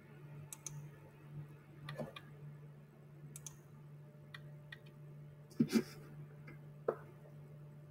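Scattered computer mouse clicks, with a louder double click about five and a half seconds in, over a faint steady low hum.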